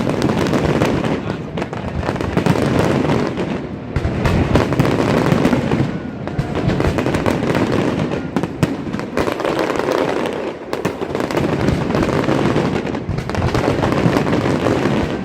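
Fireworks display: a dense, continuous run of overlapping crackles and bangs.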